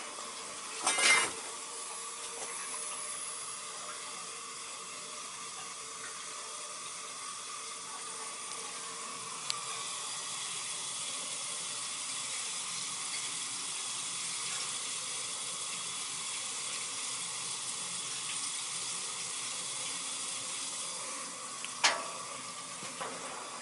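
Hot water rushing steadily through hydronic heating pipes as the circulator pump runs with the zone valve open, a sharp knock about a second in and again near the end. The pump makes none of the noise it was making before the repiping.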